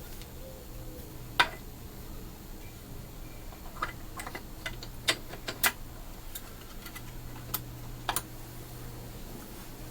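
Irregular light clicks and taps of small metal parts and hand tools being handled at a workbench during carburetor work, loudest about one and a half seconds in and bunched together in the middle. A faint steady hum runs underneath.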